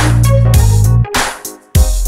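Background music with deep sustained bass notes and a beat. It drops away briefly a little past halfway and comes back in.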